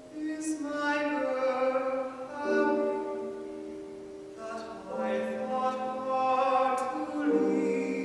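A young tenor singing an English art song in a classical style, accompanied by piano. He sings two phrases of held notes with a short breath between them near the middle.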